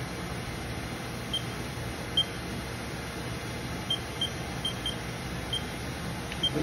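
Haas VF-0 vertical machining center's spindle running steadily at 2,000 RPM, very quiet, with a low steady hum. About eight short, high beeps from the machine's control sound at uneven intervals.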